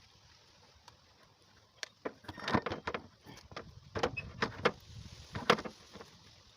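Irregular sharp clicks and knocks, about a dozen, starting about two seconds in, like parts and tools being handled during work on a car door.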